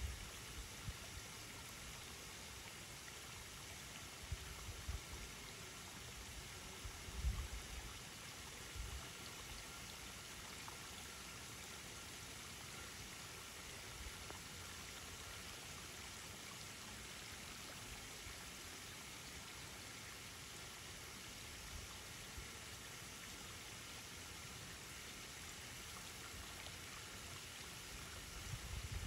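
Faint, steady rush of running water at a pond, with a few brief low rumbles in the first ten seconds.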